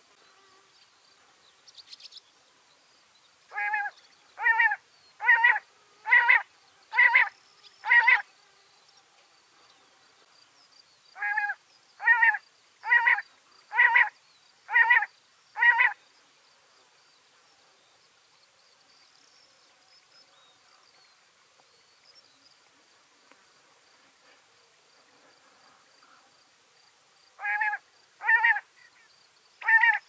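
Common quail calling: runs of short, loud, repeated phrases about one a second, six in the first run, six in the second, and a third run starting near the end.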